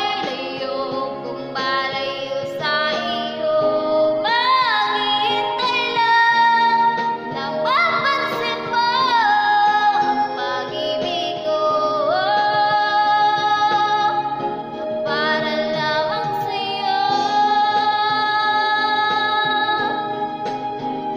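A woman singing over a music backing track, with long held notes and sliding swoops in pitch.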